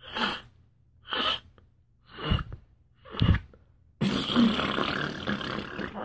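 A beatboxer's mouth imitation of a balloon emptying, made through cupped hands: four short puffs of breath about a second apart, then about four seconds in a continuous hissing rush of air lasting about two seconds and slowly fading.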